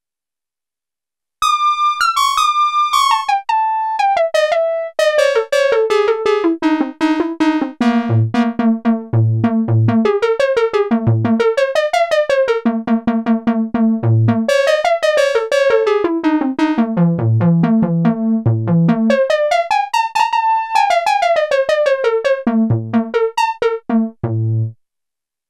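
Sequential Prophet-10 analog polyphonic synthesizer, with two CEM 3340 oscillators per voice, playing a factory preset: fast runs of short plucked notes that fall and rise again, with low bass notes coming in under them at times. The notes start about a second and a half in and stop shortly before the end.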